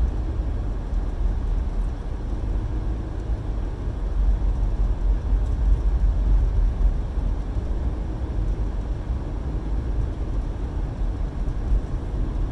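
Car heard from inside the cabin: a steady low rumble of engine and road noise.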